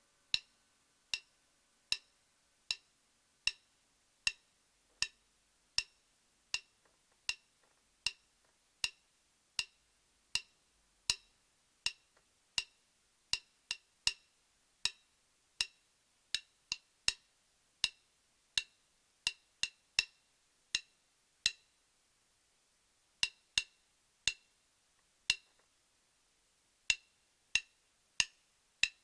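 A series of sharp, short clicks, roughly one every three-quarters of a second with an uneven spacing and a few short gaps, over an otherwise quiet background.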